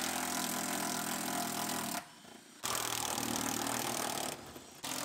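Cordless impact driver running in three spells, backing out the rear-seat mounting nuts, with a short stop about two seconds in and another just past four seconds.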